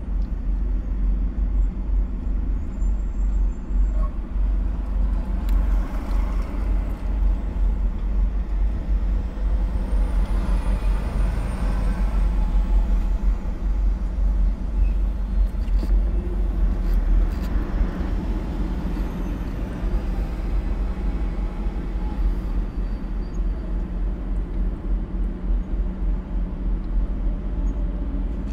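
Steady low rumble of heavy truck traffic heard from inside a car, as semi-trucks with trailers pull through an intersection.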